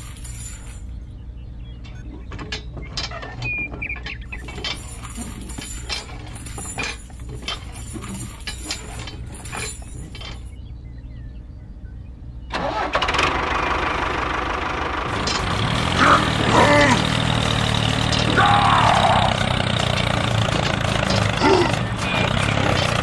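Small metal chain clinking and rattling as it is handled, in scattered light clicks. About twelve seconds in, a tractor engine sound starts and runs steadily and louder to the end.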